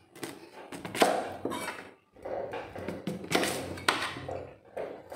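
A kitchen knife cutting cassava root into pieces on a cutting board: several sharp knocks as the blade hits the board, with scraping and handling between them.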